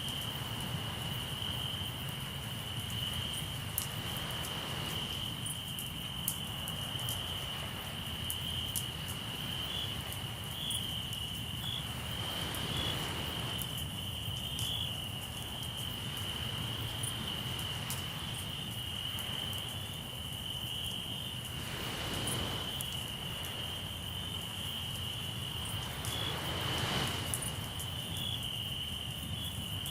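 Crickets trilling steadily in one high, unbroken tone, over campfire crackle with scattered small pops. Sea waves wash in and fade several times.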